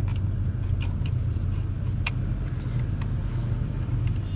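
A few light, sharp clicks and taps as hands fit fuel lines and plastic clips onto a new fuel filter on a Mercedes Sprinter engine, over a steady low hum.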